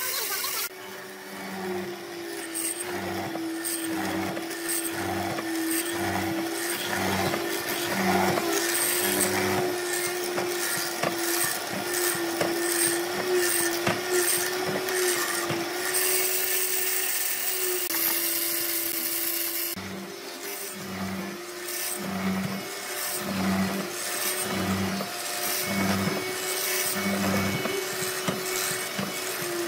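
Hollow-chisel mortiser running with a steady motor hum while its square chisel and auger bit are plunged again and again into a wooden block, a short cutting burst about once a second. The plunging pauses for a few seconds midway while the motor keeps running.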